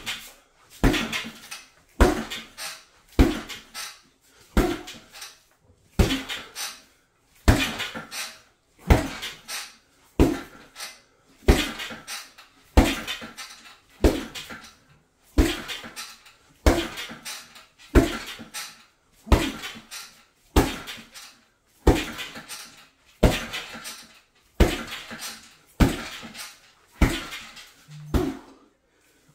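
Punches landing on a hanging heavy punching bag, one hard thud about every 1.3 seconds in a steady rhythm, each trailing off in a short rattle.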